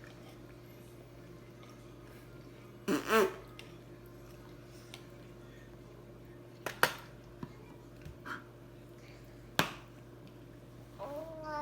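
A man blowing a fart-like raspberry with his lips, a short buzz about three seconds in, followed later by a couple of sharp single clicks.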